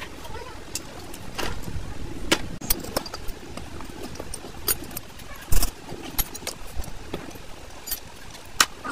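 Metal tools and parts clinking and tapping against the cast metal valve housing of a Wabco truck air dryer as it is taken apart by hand. Scattered sharp clicks, with one louder knock a little past halfway, over a low rumble.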